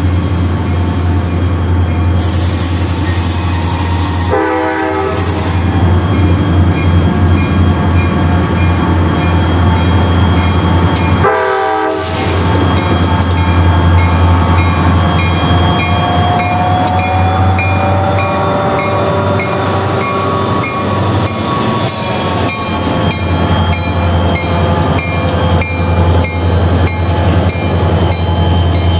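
Two EMD GP40-series diesel locomotives, each with a 16-cylinder 645 engine, drone steadily as they haul a loaded coal train past. The horn sounds briefly twice in the first half. As the coal hoppers roll by, the steel wheels squeal on the rails in sliding, slowly falling tones.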